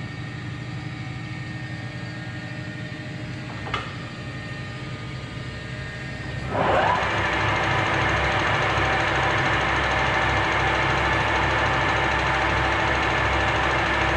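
Monarch 610 Hydro Shift tool room lathe with its 10 hp motor running quietly, with a single click near four seconds in. About six and a half seconds in, the spindle is engaged and spins up quickly, and the headstock then runs steadily and louder with a whine of several steady tones.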